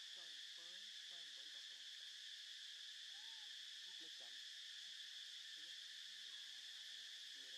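Faint, steady high-pitched insect drone, a continuous buzz that doesn't let up.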